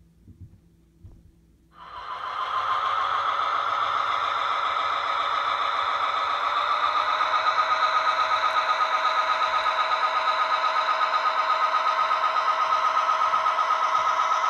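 Sound-equipped model diesel locomotive's engine sound coming in suddenly about two seconds in and running steadily with a fast, even pulsing; its pitch rises slightly about halfway through.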